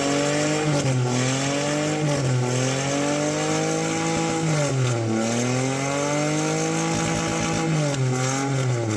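Toyota Passo engine running under throttle, its pitch climbing slowly and dropping back several times as it revs up and eases off. It pulls smoothly without jerking after the cylinder-1 misfire repair.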